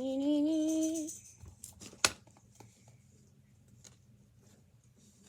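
A girl's voice holds a drawn-out, rising sung note for about a second. A sharp click follows about two seconds in, then faint small ticks and squishes of slime being stirred.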